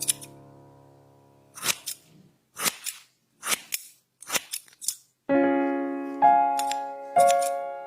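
Barber's scissors snipping hair, sharp cuts about once a second, some in quick pairs. Piano background music fades out, then comes back about five seconds in with loud held notes that are the loudest sound.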